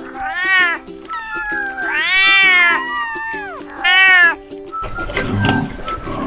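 A cat meowing three times, long meows that rise and fall in pitch, over background music. About five seconds in the meows stop and a noisier, rougher sound takes over.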